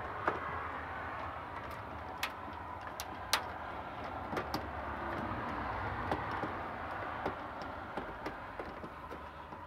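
Scattered sharp clicks and ticks from a screwdriver working on the terminal screws and wires of a ceiling-mounted camera base, over a steady outdoor background noise.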